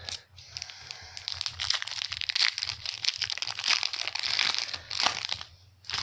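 Crinkling wrapper of a trading-card pack being opened and handled, a dense crackle that lasts about five seconds.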